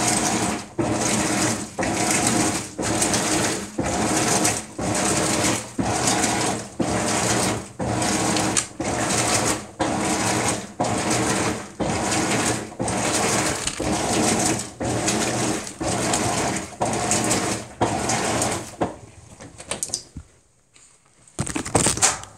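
Maytag MVWX655DW1 top-load washer agitating a load of dish towels in a deep-water wash: an even rhythm of swishing strokes, a little faster than one a second, as the wash action churns the towels through the water. The strokes stop about nineteen seconds in, and a short loud burst of noise comes near the end.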